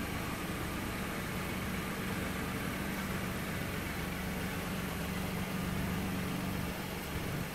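A 2019 Volkswagen Golf's 1.0 TSI three-cylinder turbo petrol engine idling with a steady low hum.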